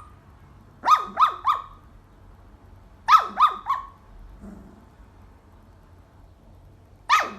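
Small dog or puppy yipping in quick bursts of three high, sharply falling yips, with one more yip near the end.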